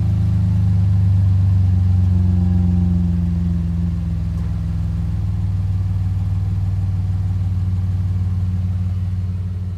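Chevy Colorado ZR2's engine idling steadily through a high-clearance exhaust with a Thrush turbo muffler, heard at the tailpipe just after start-up. The idle eases slightly lower about three or four seconds in.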